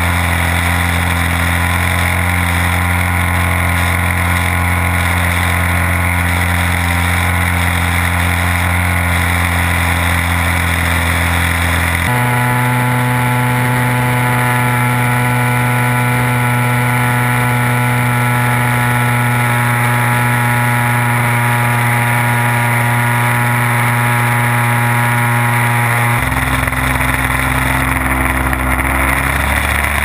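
O.S. 1.60FX two-stroke glow engine of a large RC airplane running in flight, heard from the tail along with the rush of air over the airframe. The engine note jumps abruptly to a new pitch about 12 seconds in and again about 26 seconds in, with a short glide near the end.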